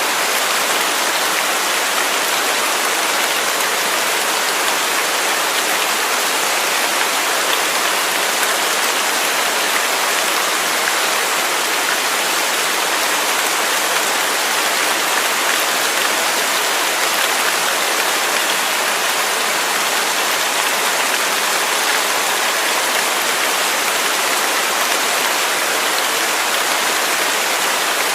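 Waterfall: falling water rushing and splashing in a steady, unchanging hiss, with little deep rumble.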